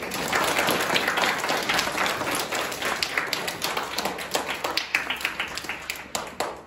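Audience applauding: many hands clapping at once, thinning out and stopping near the end.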